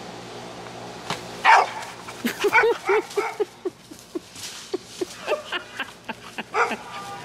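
American bully dog giving a quick run of short, sharp barks and yips while chasing a thrown fetch toy. The barking starts about a second in, is loudest at the start, and then comes about three times a second.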